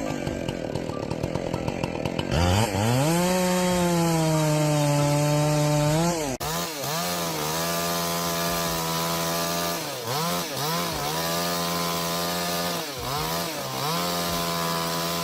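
Two-stroke chainsaw revving up to full throttle about two seconds in and running at high, steady revs, its pitch sagging slightly as it bites into the wood. At about six seconds the sound switches abruptly to a chainsaw running at high revs with several brief dips in pitch.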